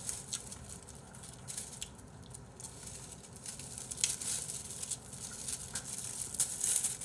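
Thin disposable plastic (vinyl) glove crinkling and rustling as it is handled and pulled onto a hand: a run of small crackly rustles that grows denser and louder over the last few seconds.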